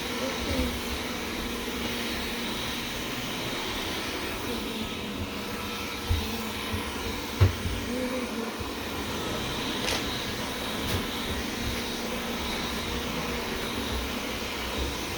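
Wyze robot vacuum running with a steady whir as it cleans, with a couple of short low thumps partway through.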